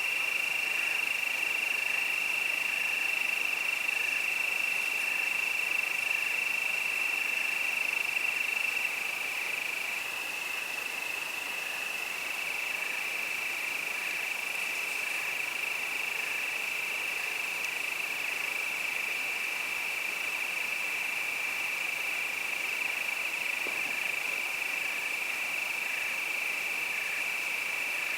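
Crickets singing in a steady, unbroken high trill, with a fainter chirp repeating under it about once a second.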